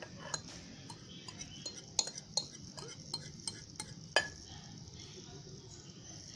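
Thin flour-and-water batter poured from a glass jug through a stainless steel mesh strainer to strain out lumps, with irregular light clinks of glass against the metal; the sharpest clinks come about two and four seconds in.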